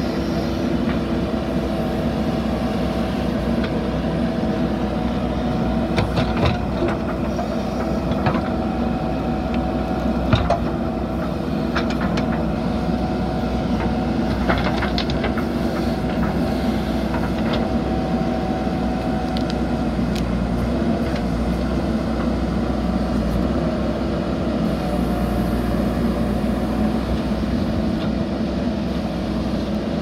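JCB 3DX backhoe loader's diesel engine running steadily under load while the backhoe digs a trench, with several sharp clanks from the bucket and arm along the way.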